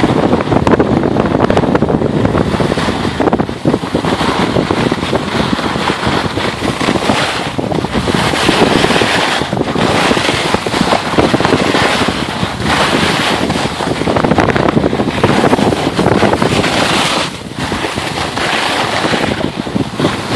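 Wind rushing over a skier's phone microphone, mixed with the hiss of skis running on groomed snow, a loud steady noise that dips briefly a few times.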